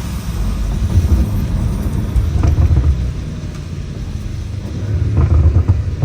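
BMW M5 Competition driving on wet roads in heavy rain, heard as a steady low rumble of engine, tyre and road noise, swelling about a second in and again near the end.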